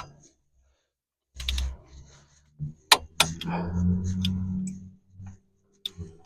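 Hand-tool work on the hub bearing bolts: a wrench ratcheting and giving several sharp metal clicks, with a steady low hum in the middle, typical of torquing the bolts to spec.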